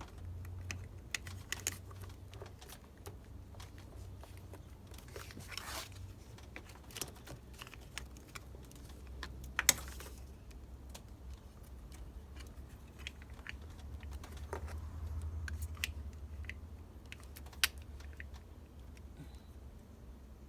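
Small metal parts being handled: scattered light clicks and taps of the quick-release battery terminal hardware as it is fitted, with a sharper click about ten seconds in and another near the end. A low steady hum runs underneath.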